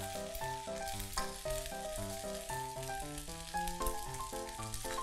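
Fried rice with nam prik ong sizzling in a wok over a gas flame, not being stirred. A background melody of short notes, about four or five a second, plays over it.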